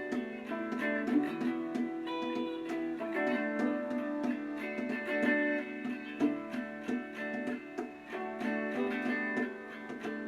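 Background music of plucked acoustic guitar, steadily picked notes and strums.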